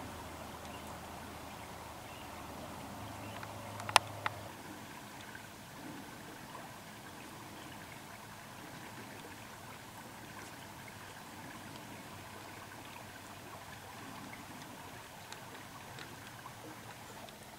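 Faint rustling of dry cornstalks and brush, with two sharp clicks close together about four seconds in.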